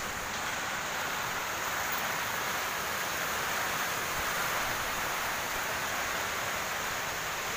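Typhoon rain and wind: a steady, even hiss with no breaks or separate sounds.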